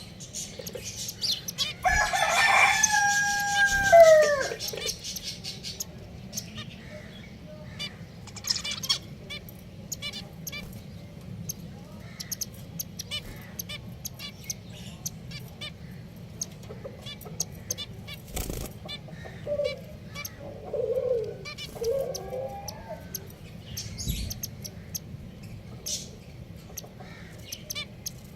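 A rooster crows once, about two seconds in: a long pitched call that falls away at the end. Many short, high chirps from small caged finches run through the whole stretch, with a few lower fowl calls around twenty seconds in.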